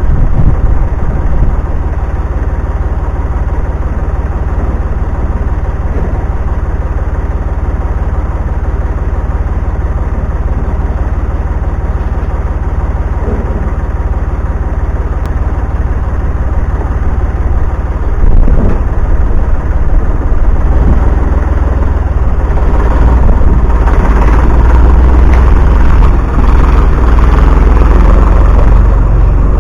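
An engine running steadily with a heavy low rumble. It grows louder about two-thirds of the way through and stays louder to near the end.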